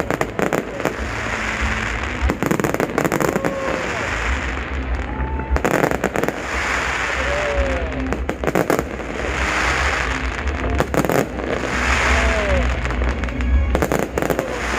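Fireworks show: aerial shells bursting in a rapid, irregular series of bangs, with patches of crackling lasting a second or two between them.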